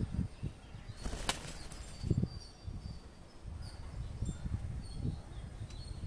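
A rose-ringed parakeet shaking and ruffling its feathers, a brief fluttering rustle about a second in, amid low rumbling bumps.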